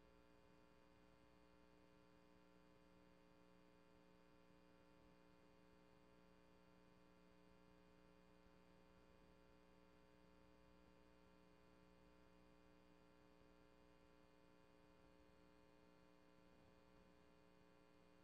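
Near silence: only a faint, steady electrical hum from the recording chain, with no audio from the room.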